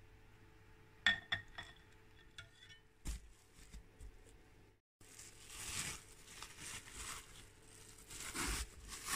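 A metal slotted spoon clinks against a stainless steel pot several times, with a duller knock a moment later. After a sudden cut, plastic cling film crinkles and rustles as it is handled and pulled back from a pack of sliced bacon.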